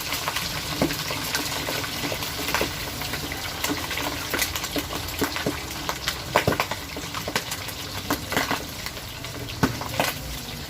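Boiled pork leg deep-frying in hot oil: a steady sizzle broken by frequent, irregular sharp pops and crackles of spattering oil.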